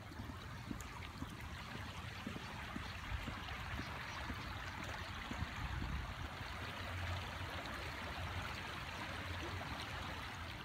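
Shallow creek running over rocks and riffles: a steady rushing of water that grows louder over the first few seconds, then holds.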